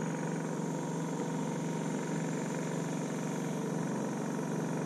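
Small engine on a bowfishing boat running with a steady, even hum.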